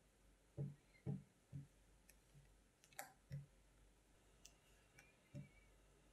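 Spatula folding a creamy cheesecake batter in a glass bowl: about six soft, dull knocks as it strokes through the mix and against the bowl, with one sharper click about three seconds in. The red watermelon-gelatine mixture is being folded into the cream cheese filling.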